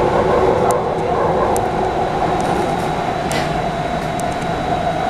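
Inside an MTR Ma On Shan line C-Train running at speed: a steady rumble of wheels and running gear, with a faint steady high whine and a few light clicks.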